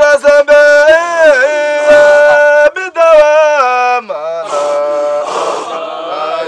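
Qadiriyya Sufi dhikr: a single male voice sings a high, held, wavering melodic line for about four seconds, then a lower group chant of men's voices takes over.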